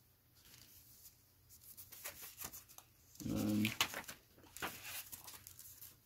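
Paper and plastic packaging rustling and crinkling as the contents of a motherboard box are handled: a run of quick rustles and clicks from about a second and a half in. Around three seconds in there is a brief low vocal sound.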